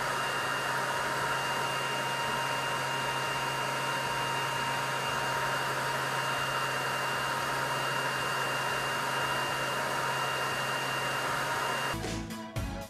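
xTool D1 Pro 20 W diode laser module at work cutting wood, its cooling fan running with a steady whir and a thin high whine. About twelve seconds in it cuts off abruptly and music starts.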